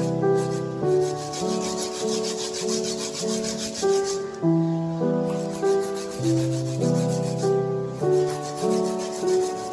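Slow instrumental background music with held notes and chords over a bass line, and a steady scratchy, rasping hiss pulsing along with it that drops out briefly a few times.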